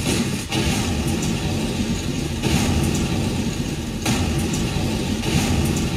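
Staged explosion sound effects played loud over an outdoor sound system: a continuous low rumble with a fresh surge of blast noise every second or two, depicting the gunpowder carts blowing up.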